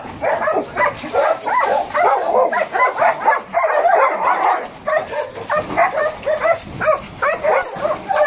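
Several caged dogs barking and yelping at once, a dense run of short, overlapping barks with no letup.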